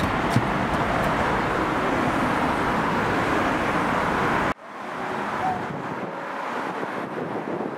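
Jet noise from the E-7A Wedgetail's two turbofan engines as the aircraft flies low and banks: a loud, steady rush. About four and a half seconds in it cuts off abruptly, and a fainter rush of the same aircraft, now farther away, follows.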